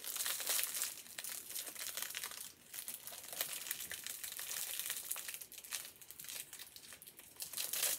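Packaging being handled and opened: a run of crackling rustles with a few short pauses.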